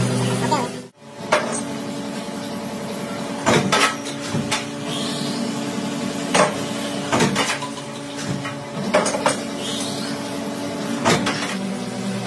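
A machine humming steadily, with sharp metallic knocks and clanks about every second or two.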